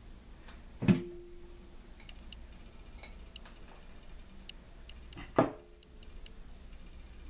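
Two sharp knocks against a glass baking dish, about four and a half seconds apart, each ringing briefly, with faint light ticks in between as hands work seasoning into raw chicken pieces.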